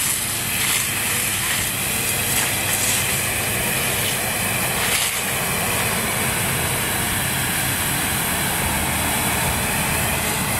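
A fire hose jetting water onto burning brush, a steady rushing hiss, over a steady low engine drone, with a few crackles from the fire.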